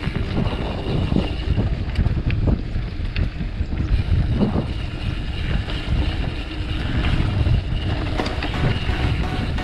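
Mountain bike rolling downhill on a dirt trail at about 20–25 km/h: wind buffeting the microphone, with tyre rumble and rattles from the bike as it goes over bumps.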